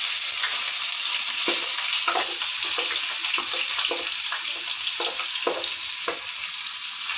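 Freshly chopped onions sizzling in hot oil in a frying pan, a steady loud hiss. A wooden spatula knocks and scrapes about every half second as the onions are pushed in and stirred.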